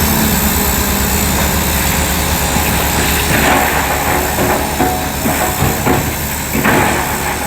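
Shantui bulldozer's diesel engine running steadily, with irregular clanks and knocks from about three seconds in, the loudest near the end.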